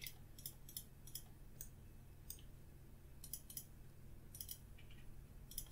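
Faint computer mouse button clicks: about a dozen short, sharp clicks at uneven intervals, some in quick pairs, over a low steady hum.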